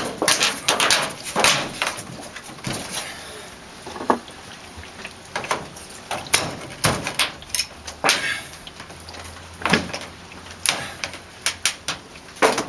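Irregular knocks, clacks and scrapes of hand work on an old door and its frame.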